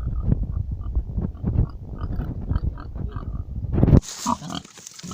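Pigs grunting, low and repeated. About four seconds in, the sound changes abruptly to a thinner, hissier mix.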